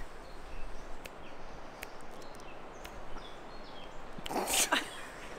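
Steady outdoor background noise with a couple of faint finger-snap clicks about a second in, weak attempts that fail to give a proper snap. A short burst of laughter comes near the end.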